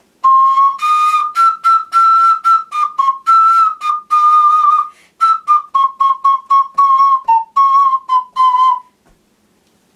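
An ocarina plays a melody in short, detached notes, one note at a time, stopping near the end.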